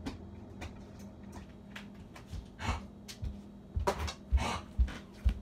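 A run of dull thumps with some rustling, getting louder and coming about twice a second in the second half.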